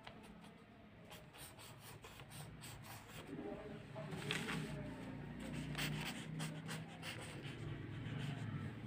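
Marker pen scratching on paper in many short strokes as a word is written and boxed in. A low steady hum comes up underneath from about four seconds in.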